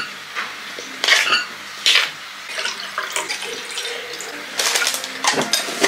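Dishes and cutlery clinking a number of times at irregular intervals, with water running from a tap, as food or dishes are handled at a kitchen sink.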